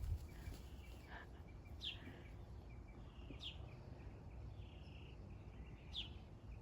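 Birds chirping in the background: three short, high chirps spaced a second or two apart, with fainter calls between, over a steady low outdoor hum.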